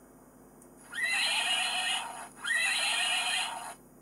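A horse neighing, two calls of about a second each with a short break between them.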